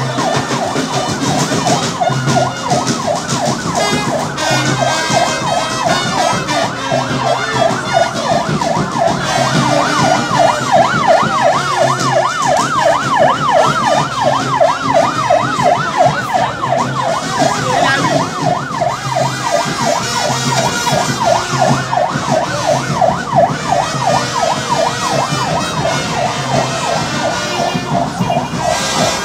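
Vehicle siren on a slow-moving convoy, wailing and then switching to a fast up-and-down yelp of several sweeps a second that is clearest in the middle, over a steady low pulse about once a second.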